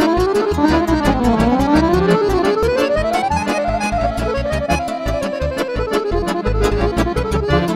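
Accordion playing a fast lăutărească tune: quick melodic runs that climb and fall, over an even pulsing bass-and-chord accompaniment.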